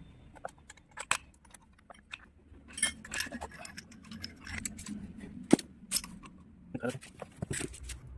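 Irregular metallic clinks and clatter of hand tools and metal parts being handled during a harvester repair, with the sharpest clinks about five and a half and six seconds in.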